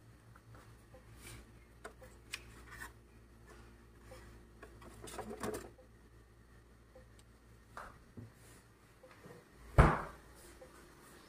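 Eggs and containers being handled inside a refrigerator: small clicks and a short spell of rustling, then one loud thump near the end as the refrigerator door is shut.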